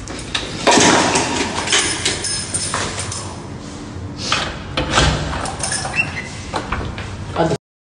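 A door being opened: an irregular run of clicks and knocks from the handle and latch, with rustling, stopping suddenly near the end.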